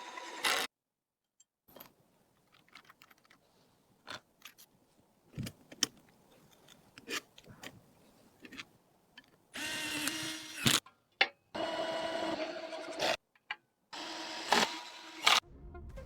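PC components being handled and fitted together: quiet scattered clicks and taps, then from about ten seconds in louder stretches of clattering with a steady hum, broken by short gaps.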